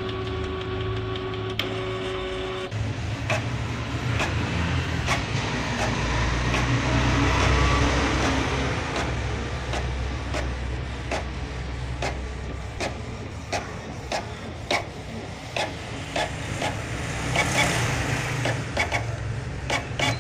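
Canon G4100 inkjet printer running a colour copy: its mechanism whirs with many small clicks as the page is fed and printed. A steady tone stops about two and a half seconds in. This is the printer working normally again after its 5B00 waste-ink counter was reset.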